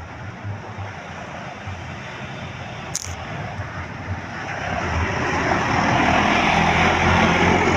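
Tour bus approaching on the road: engine hum and tyre noise building, much louder from about five seconds in. A brief sharp click about three seconds in.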